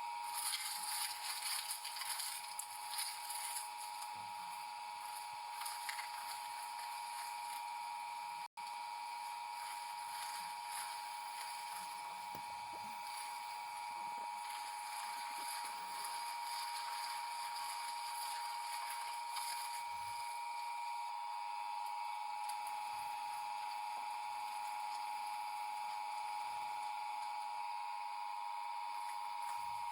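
A machine running with a steady high whine over a hiss, cutting out for an instant about eight seconds in.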